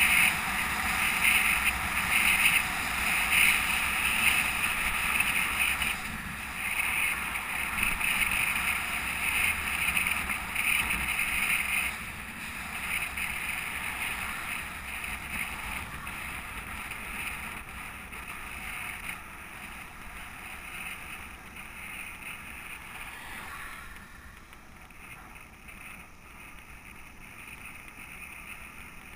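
Wind rushing over a bicycle-mounted camera's microphone, with tyre noise on asphalt, while the bike rolls along a road. It is louder through the first dozen seconds, then grows steadily quieter.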